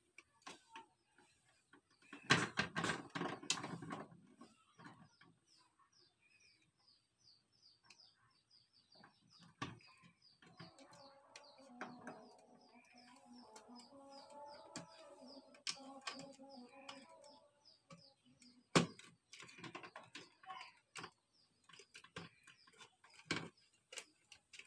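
Small clicks, taps and rustling as wires are handled and screw terminals are worked with a tester screwdriver on a plastic switch board, with a denser spell of handling noise about two seconds in.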